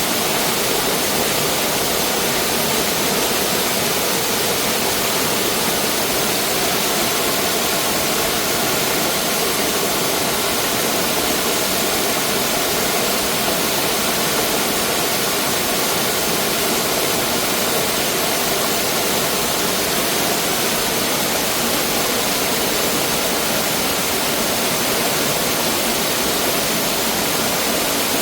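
Mountain valley stream rushing steadily over rocks, a dense, unbroken water noise.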